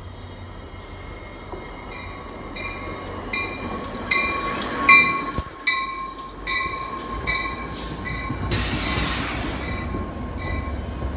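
A commuter train pulls slowly into the station, its wheels or brakes squealing with a steady high whine while its bell rings over and over, about every two-thirds of a second. A sharp knock comes about halfway through, and a burst of hiss follows a few seconds later.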